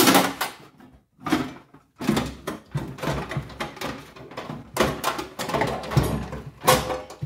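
A string of knocks and rattles from a sheet-metal tool case being opened and a corded circular saw being lifted out, the saw's body and cord bumping against the case's metal walls and lid. The sharpest knocks come right at the start and near the end.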